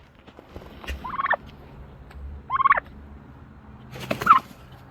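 Tom turkey gobbling three times, about a second and a half apart, each gobble a short rapid warble. A brief loud rustle overlaps the third gobble.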